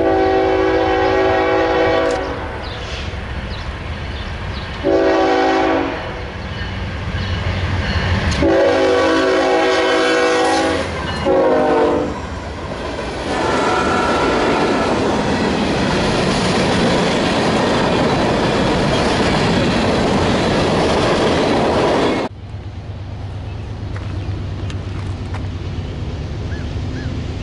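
Horn of a Norfolk Southern freight's lead GE ES44AC locomotive sounding four blasts, the third long and the fourth short, followed by the train's freight cars rolling past with steady rail noise. This cuts off suddenly about two-thirds of the way through to the quieter rumble of another approaching train.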